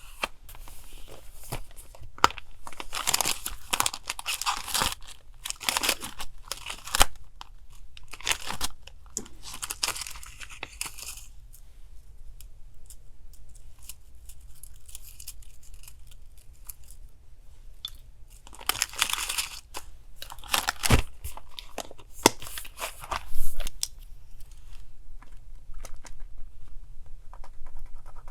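Paper being torn and handled in several stretches of a few seconds each, with small taps and clicks between them. A low, steady refrigerator hum runs underneath.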